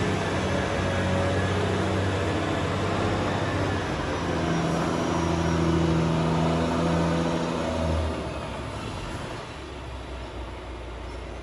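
Renault Lander 460 truck's six-cylinder diesel engine pulling away under load, its note shifting in pitch about four seconds in. About eight seconds in the engine note drops and the sound fades as the truck moves off.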